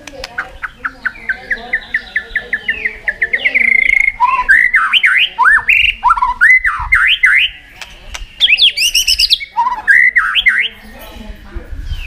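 White-rumped shama singing: a run of short quick notes that speeds up into a trill, then loud, varied whistled phrases with sweeping up-and-down glides, a brief pause about two-thirds of the way through, and a burst of higher, shriller notes.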